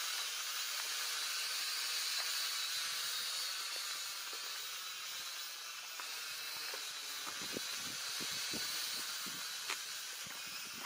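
Syma toy quadcopter's small motors and propellers whining steadily overhead, a thin high-pitched hiss. A few faint short clicks come in the second half.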